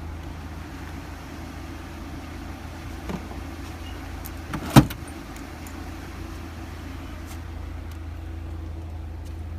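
Steady low hum of the Nissan Altima running, with a small knock about three seconds in and a single sharp click a little before five seconds in.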